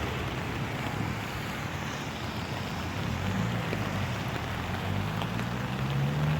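Rainwater runoff rushing toward a storm drain, an even watery hiss, with a low steady engine hum underneath that swells slightly near the end.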